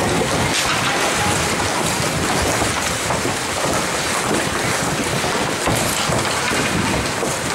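Steady, loud rushing din of an ice hockey rink, with no distinct events standing out.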